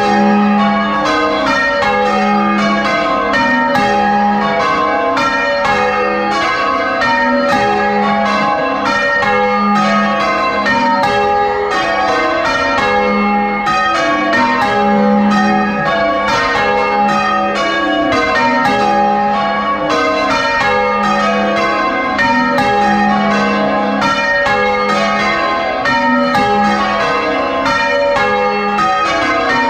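A ring of six church bells, tenor 9 cwt in A♭, being change-rung full circle, heard close up from inside the bell chamber: an even, unbroken run of loud bell strikes with the deep tenor sounding in its regular place in each change.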